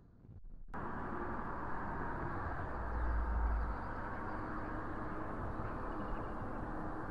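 Steady vehicle road noise that starts abruptly about a second in, with a brief low rumble a few seconds in.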